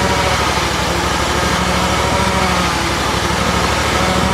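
Lawn mower's small engine running steadily at a constant speed, its rapid firing pulses even throughout.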